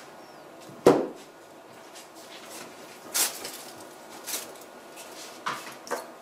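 Two plastic refillable water-filter cartridges set down on a table with a sharp knock about a second in, followed by a few shorter rustles and clicks of handling on the plastic-covered tabletop.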